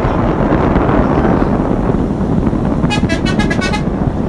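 Air horn on a Volkswagen Crafter minibus sounding a rapid string of about seven short toots about three seconds in, over steady traffic and engine noise.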